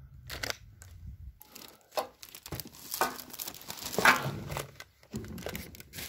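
Plastic bags and bubble wrap crinkling and rustling in irregular bursts as wrapped parts are handled, the loudest crackle about four seconds in.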